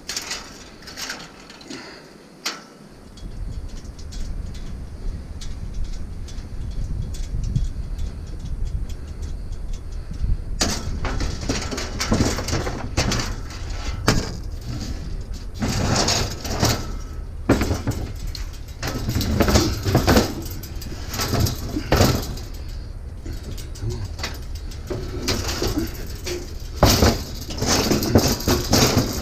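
A vehicle on the move: a steady low road and engine rumble that starts about three seconds in, with irregular knocks and rattles over it from about ten seconds on.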